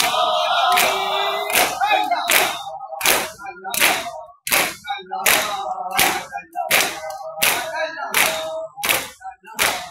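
A crowd of men beating their chests with open palms in unison for maatam, the Shia mourning rite: sharp slaps in a steady beat, a little over one a second. Chanted lament voices carry on between the strokes.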